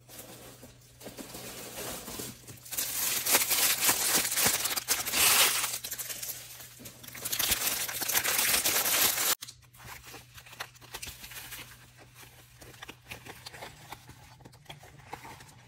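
Packaging crinkling and tearing as an item is unwrapped, loudest in the first half and stopping abruptly about nine seconds in, then quieter rustling.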